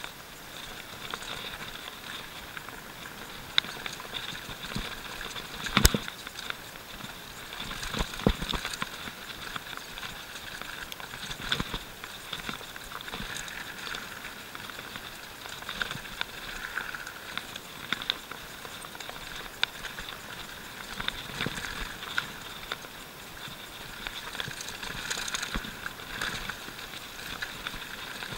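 Canyon Nerve mountain bike ridden fast down a rough dirt singletrack: a steady rush of tyres and wind, with frequent rattles and knocks from the bike over bumps, the loudest knock about six seconds in.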